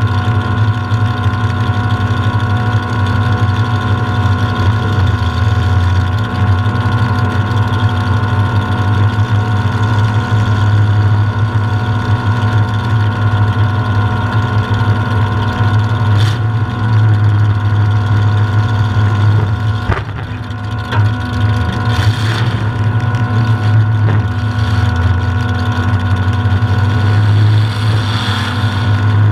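Demolition-derby truck's engine idling steadily, heard from inside the cab, with a few short knocks about two-thirds of the way through.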